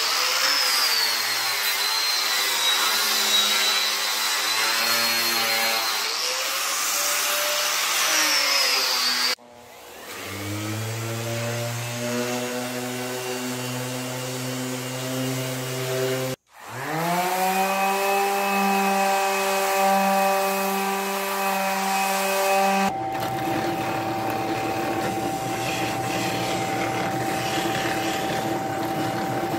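Power sanding of pine in several short takes. First a small hand sander with a sanding disc runs against a flat board with a wavering high whine. Then a random orbital sander starts up and runs. After a cut another motor spins up and holds steady, and last a drill press runs with a steady hum, driving a homemade sanding drum against the inside edges of the cut-out tray top.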